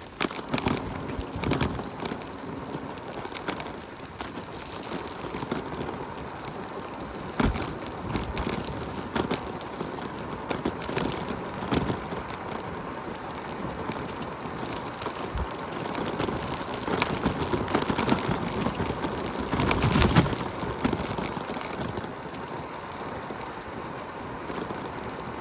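Steady noisy hiss of wind on the microphone and wet pavement while riding a Segway scooter, with scattered brief knocks and a louder swell about 20 seconds in.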